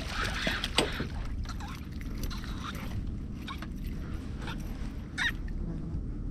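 A steady low rumble with scattered light clicks and knocks as a just-landed perch and its lure are handled in a boat.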